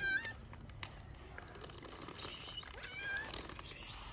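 A hungry kitten meowing for food: two high-pitched meows, one right at the start and another about three seconds in, each rising and then levelling off, with a few light clicks between them.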